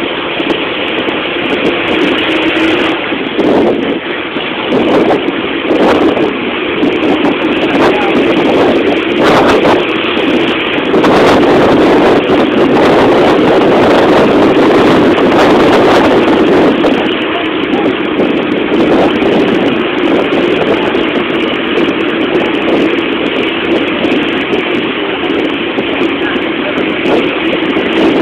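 Motor vehicle running along a road, heard from inside: a steady engine hum mixed with road and wind noise, growing louder for a few seconds midway.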